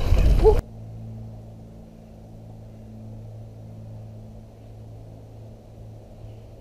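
Loud rushing wind and tyre noise from a mountain bike riding a dirt trail cuts off suddenly about half a second in. After that there is only a quiet, steady low hum.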